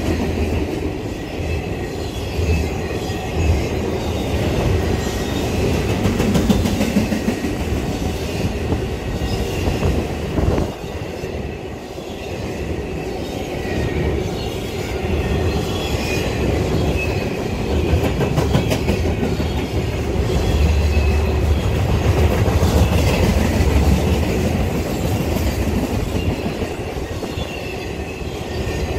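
A train's cars rolling steadily past with a continuous rumble and the clatter of wheels over the rails, and a faint high wheel squeal coming and going.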